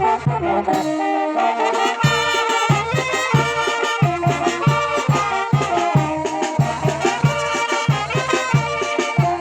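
A Mexican brass band (banda) plays a chilena, with trumpets and trombones carrying the melody. The low bass beat drops out for about the first two seconds, then returns as a steady pulse under the horns.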